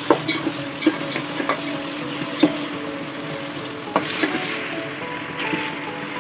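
A metal spoon stirring sliced onions and tomatoes frying in an aluminium pot, clinking and scraping against the pot's side at an irregular rhythm over a steady sizzle. Soft background music plays underneath.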